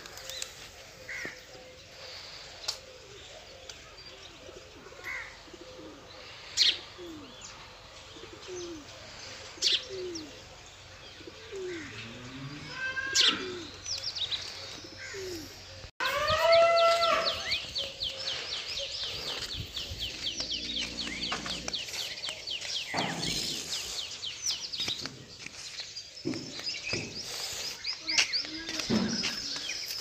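Birds calling: low, repeated cooing notes with scattered high chirps, then, after a sudden cut about halfway through, louder dense chirping.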